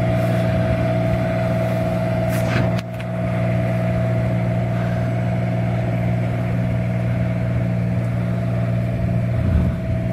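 A motorhome engine running steadily, a constant low drone with a higher tone above it. There is a short click about three seconds in.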